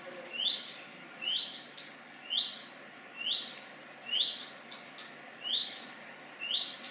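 Redstart fledgling giving its single monotonous whistle over and over, about once a second, each note sliding up and then holding. It is the one call such a bird can keep up for hours.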